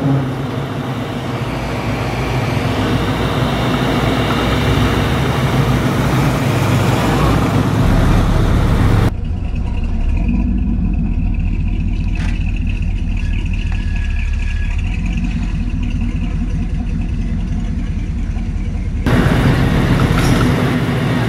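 Classic cars driving slowly past one after another, engines running at low speed: first a 1960s station wagon, then an early-1960s Chevrolet pickup, then a 1930s car. The sound changes abruptly twice as one vehicle gives way to the next.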